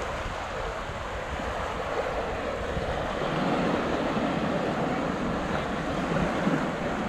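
Surf washing on the beach as a steady rush, with wind buffeting the microphone that eases about three seconds in.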